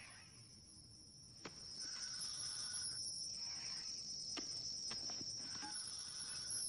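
Quiet, eerie animated-soundtrack ambience: a steady, wavering high trill like a cricket, a fainter tone that comes and goes, and a few sharp clicks.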